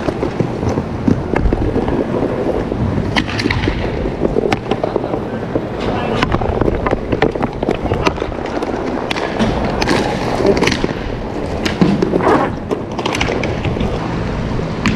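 Inline hockey skate wheels rolling over plastic sport-court tiles, a steady rumble with many scattered clicks and knocks from the stick and puck.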